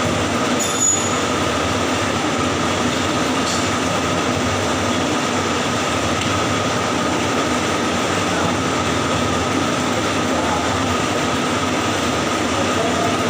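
Electric arc welding on pipe: a steady, even crackling hiss of the welding arc with a faint steady tone running through it, and one short tick about a second in.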